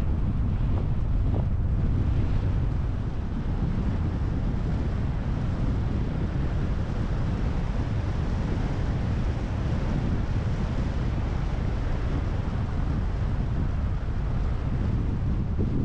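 Steady wind with low rumbling wind buffeting on the microphone.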